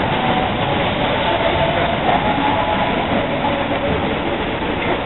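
Steady, noisy crowd ambience of a street procession in the rain, a constant hiss with faint voices drifting through.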